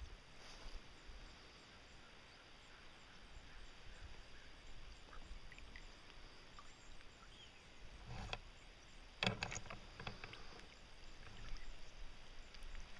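Faint water sloshing as a female mallard dabbles and feeds in a shallow paddling pool, with a few sharper splashes about eight and nine seconds in, the loudest just after nine.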